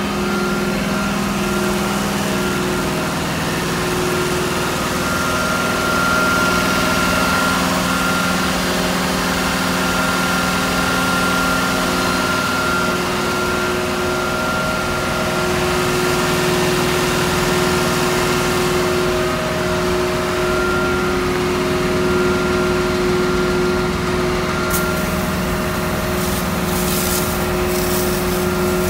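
FMC LMD2000 aircraft deicer truck running steadily, a constant machine hum with a steady whine over it. In the last few seconds the hand-held deicing nozzle opens and fluid sprays in hissing spurts.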